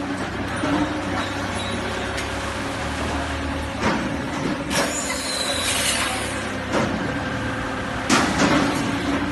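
Automatic brick-packing and strapping machine running: a steady mechanical hum with a few clanks, and a burst of hiss about five seconds in.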